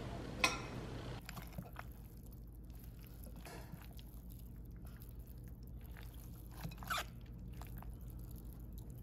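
Faint wet squishing of dressed pasta salad being stirred with a spoon in a glass bowl, with a few soft clicks.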